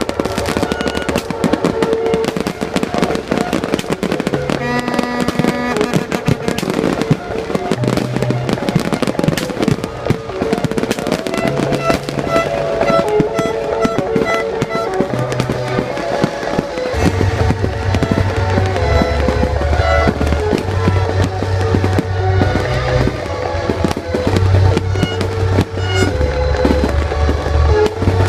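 A fireworks display: a dense run of bursts and crackles, heard together with music. The music's heavy bass line comes in about two-thirds of the way through.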